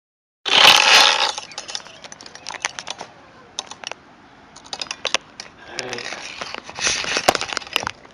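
Handling noise on the recording device: a loud rubbing burst near the start, scattered irregular clicks and scrapes, and another stretch of rubbing noise near the end.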